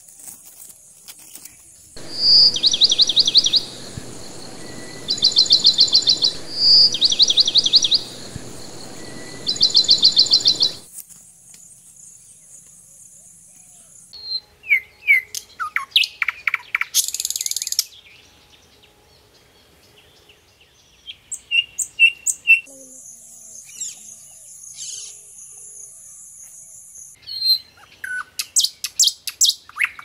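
Songbirds singing in several recordings cut one after another. First come loud, fast trills repeated in bursts, then varied short whistled phrases, then rapid series of repeated notes near the end. A steady high-pitched hiss runs behind parts of it.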